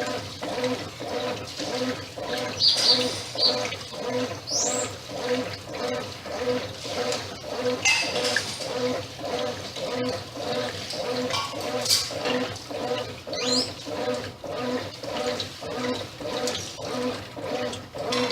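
Brastemp 8 kg top-load washing machine agitating its load, water sloshing back and forth in the tub at about two strokes a second. A few short high chirps sound over it.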